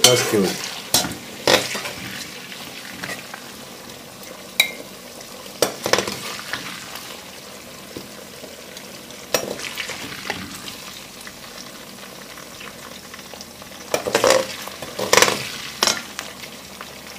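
Diced potatoes frying in hot oil in a thick-bottomed kazan, a steady sizzle, at the half-fried stage where they start to stick. A slotted metal skimmer clinks and scrapes against the pot now and then as the potatoes are scooped out, with a cluster of clinks near the end.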